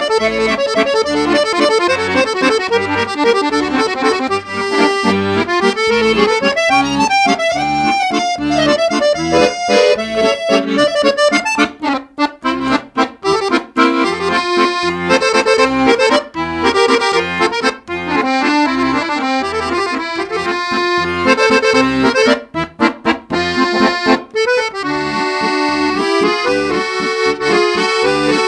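Background accordion music over a steady bass beat, with short clipped chords about halfway through and again near the end.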